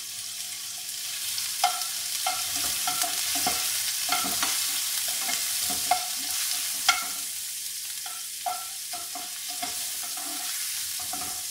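Sliced hot dog pieces sizzling in a granite-look nonstick frying pan while a spatula stirs them, with a steady hiss of frying and frequent short knocks of the spatula against the pan that ring briefly.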